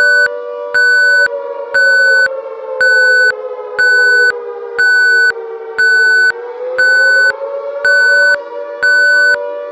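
Electronic emergency-alert beep, a steady high tone of about half a second repeating roughly once a second, over a sustained lower droning chord that slowly sinks in pitch and climbs back about two-thirds of the way through.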